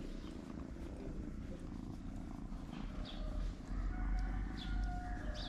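Black-and-white cat purring steadily as it is scratched under the chin, a low continuous rumble.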